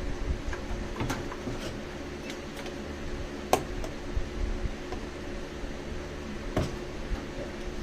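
Electric fans running with a steady hum, under scattered small clicks and taps of parts and tools being handled; a sharper knock comes about three and a half seconds in and another past six seconds.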